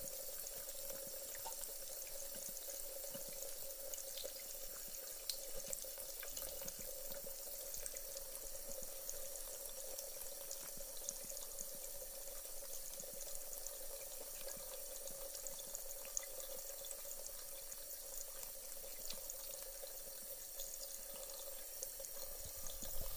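Thin stream of tap water running steadily from a faucet into a sink basin, a steady hiss with a faint steady tone underneath and scattered light ticks. A brief knock near the end.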